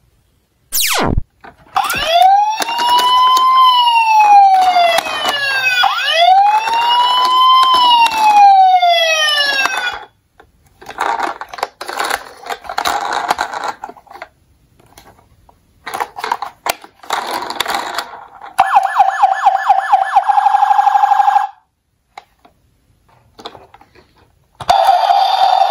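Electronic siren of a battery-powered Tonka toy ambulance: after a quick falling sweep, it wails up and down twice, about four seconds per cycle. Choppy, broken sound effects follow, then a fast-pulsing siren tone for about three seconds, and another loud sound starts near the end.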